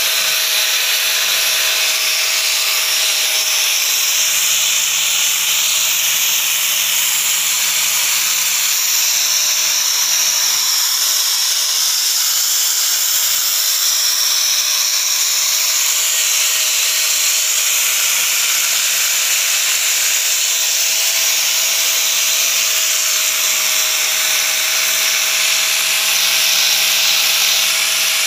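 A 4-inch electric angle grinder fitted with a wire cup brush runs at steady speed, scrubbing paint off steel reinforcing bars. A constant motor whine sits under a steady, hissing scrape throughout.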